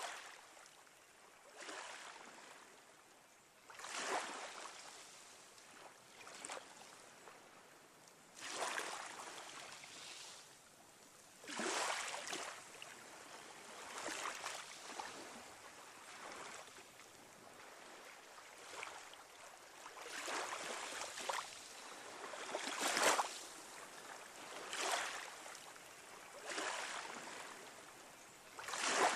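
Waves washing in: a rushing noise that swells and fades every two to three seconds.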